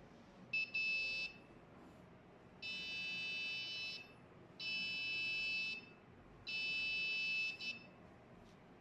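Small round buzzer on an Arduino Nano ultrasonic distance-detector circuit beeping: four high-pitched beeps, a short broken one, then three of about a second each.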